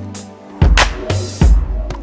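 Background pop music with a steady drum beat: deep bass-drum kicks and bass notes, with a snare hit a little past the middle.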